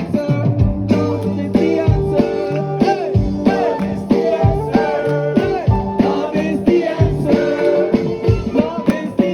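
Live group jam: voices singing over handpans and drums keeping a steady beat.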